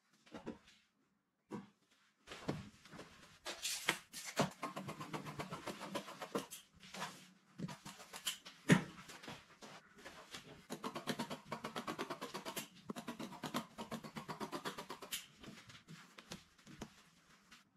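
Scissors cutting through brocade upholstery fabric in long runs of quick, crunchy snips with short pauses between, and the fabric rustling as it is handled. One sharp knock about nine seconds in.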